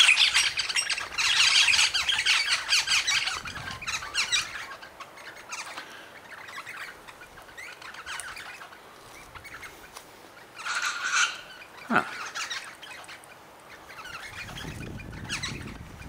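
Wild birds calling at a feeding spot: a dense, rapid chatter of calls for the first four seconds, then quieter calling, another short burst about eleven seconds in, and one short sharp sound just after it.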